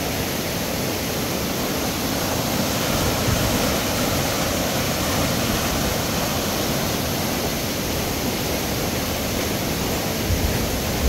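Rain-swollen river running fast: a steady, even rush of water with no pauses.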